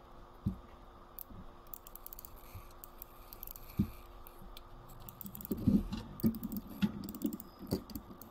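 Irregular small clicks and taps of metal clock parts as a wind-up alarm clock movement is handled and its mainspring fitted. The clicks come more thickly and louder in the last few seconds.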